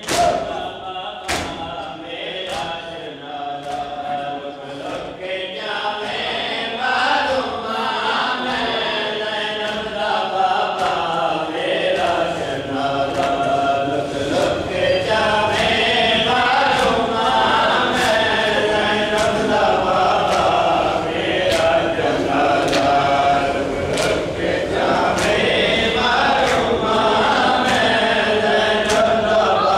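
A crowd of men chanting a nauha (Shia mourning lament) together in unison. Sharp slaps of hands striking bare chests in matam keep time, roughly once a second.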